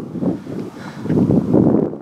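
Wind buffeting the camera's microphone, an irregular low rumble that gusts louder about a second in.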